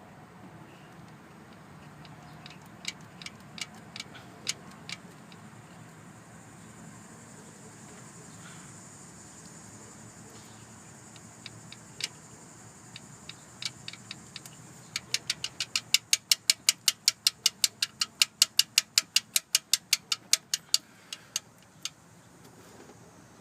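4.7-litre V8 idling with sharp ticking clicks from a bad tensioner: a few scattered clicks at first, then a steady run of about four clicks a second for several seconds in the second half.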